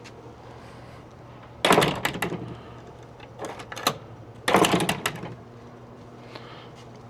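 Gate latch and hardware clattering twice, about three seconds apart, with lighter clicks between: the gate being opened and swung shut on its new spring kit, the latch catching.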